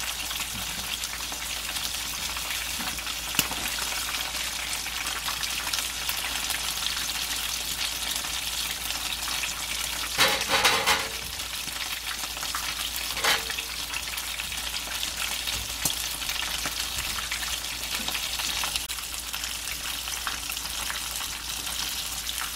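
Battered squid rings deep-frying in a pan of hot oil, sizzling steadily, with a brief louder burst of noise about halfway through.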